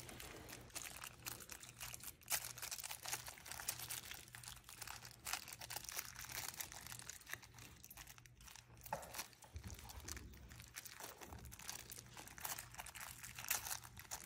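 Clear plastic wrapping crinkling irregularly as small action-figure parts are unwrapped by hand.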